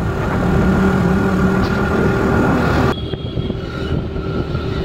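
Steady noise of a running vehicle: a continuous rumble with a steady hum over it. The sound changes abruptly about three seconds in to a quieter, thinner stretch of the same kind.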